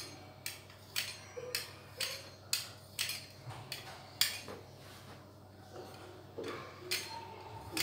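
Pizza-cutter wheel cutting slits into a strip of dough on a marble countertop: a sharp click about twice a second as the metal wheel comes down on the stone with each cut, thinning to a couple of clicks after about four seconds.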